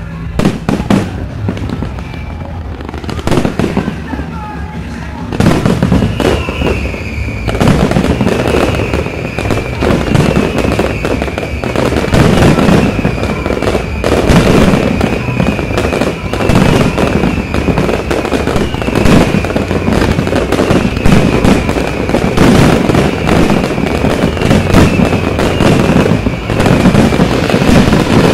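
Fireworks display: a few scattered bangs at first, then from about five seconds in a dense, continuous barrage of booms and crackling.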